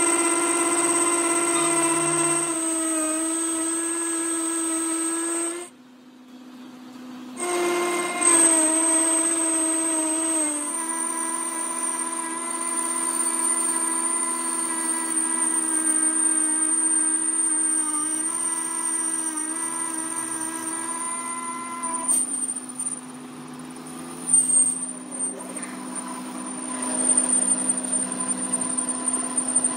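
Metal lathe cutting a steel gear shaft, the tool giving off a steady, pitched ringing whine as it cuts. The sound drops out for a moment about six seconds in. In the last several seconds the whine fades and irregular clicks and rattles of swarf come through.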